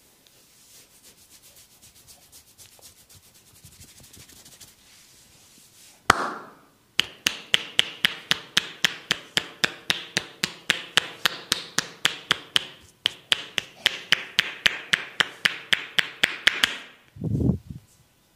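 Massage percussion: hands striking the skin in a fast, even rhythm of sharp slaps, about four a second, after a few seconds of light patting and rubbing. The strikes pause briefly once, and a dull thump comes near the end.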